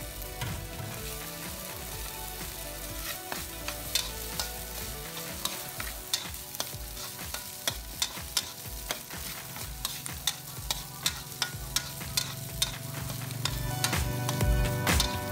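Metal spatula stirring and scraping food around a metal wok as it fries, with frequent sharp taps and scrapes against the pan over a steady sizzle. The stirring grows louder near the end.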